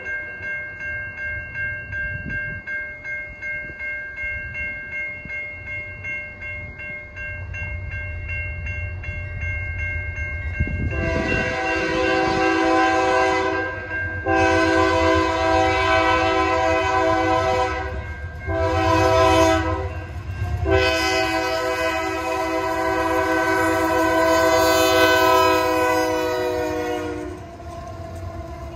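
A crossing bell rings in steady pulses about twice a second as a freight train approaches. About 11 seconds in, the lead Union Pacific GE AC44CW diesel locomotive's air horn sounds the grade-crossing pattern (long, long, short, long) over the growing rumble of the engines, stopping just before the locomotives pass.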